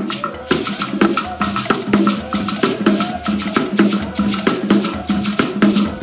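African drum music: a fast, steady rhythm of sharp wooden clicks over a repeating low drum beat.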